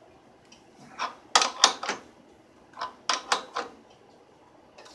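Short runs of metal clicks from a wrench being worked in strokes on the nut of a pulley installer tool, pressing a pulley onto a Saginaw power steering pump shaft. The clicks come in small groups every second or so, with quiet between.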